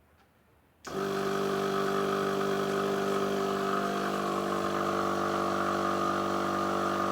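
Small electric air compressor starting about a second in and running with a steady hum, putting a little air into a new 26-inch inner tube.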